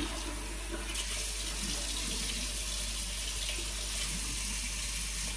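Kitchen tap running steadily into a jug, topping up dissolved jelly with water; the stream's hiss grows a little stronger about a second in.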